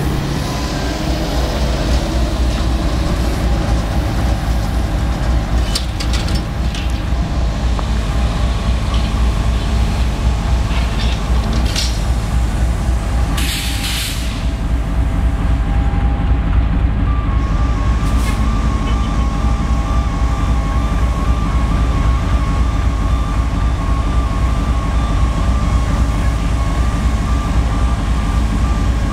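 MAN articulated electric trolley bus driving by, with a steady low rumble and faint steady electric whine tones. A short hiss of air sounds about halfway through.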